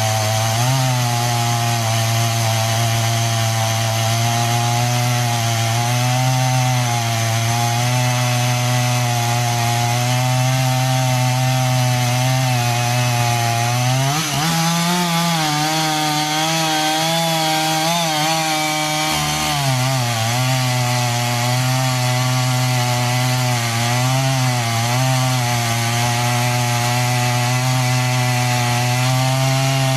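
Two-stroke chainsaw running under load, cutting through wood with a steady, slightly wavering pitch. About halfway through, the engine speeds up for roughly five seconds, then settles back down.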